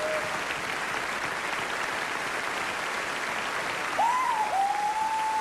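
Large theatre audience applauding steadily. About four seconds in, a long high held tone starts above the clapping.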